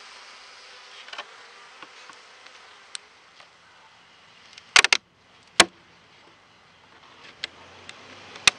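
Honeybees buzzing over an open hive, a steady faint hum. About halfway through come a few sharp clicks and knocks, the loudest sounds, with a single loud click soon after and a few lighter ones near the end.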